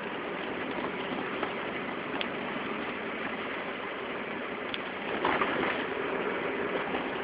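Wheel hub running with an abnormal noise: a steady rushing sound with a few light ticks, and a brief louder rough scraping patch about five seconds in.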